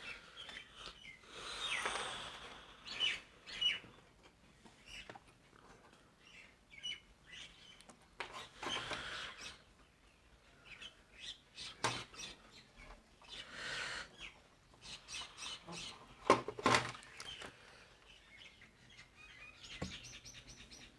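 Small birds chirping faintly in the background, over quiet handling noises of a capacitor being fitted into a circuit board: soft rustles and a few sharp clicks.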